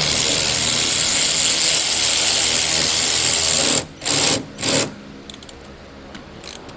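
Compressed-air tool hissing loudly for about four seconds, then two short bursts.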